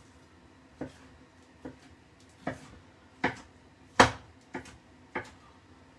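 Knife chopping on a cutting board: seven sharp knocks at a rough, uneven pace, the loudest about four seconds in.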